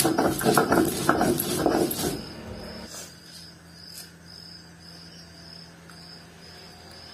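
Stone rolling pin (batta) worked back and forth over a stone grinding slab (sil), crushing ginger and dried chillies into a wet paste: rhythmic gritty scraping, about three strokes a second, that stops after about two seconds.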